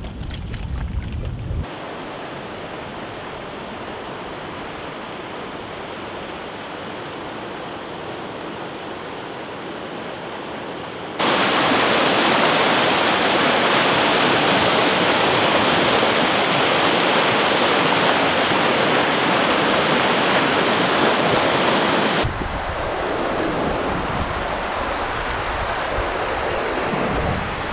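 River rapids rushing steadily, heard in three stretches that change loudness suddenly: moderate for about ten seconds, much louder in the middle, then somewhat quieter near the end. Wind rumbles on the microphone for the first second or two.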